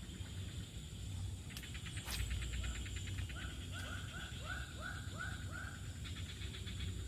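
An animal calling in a rapid series of short, arched yelping calls, about three a second, with a pause of a couple of seconds in the middle. During the pause a fast pulsing buzz is heard. A steady high whine and a low hum run throughout.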